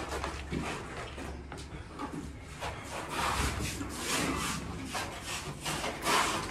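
Scuffing footsteps and rubbing scrapes on a bare, grit-covered concrete floor, in short, uneven strokes.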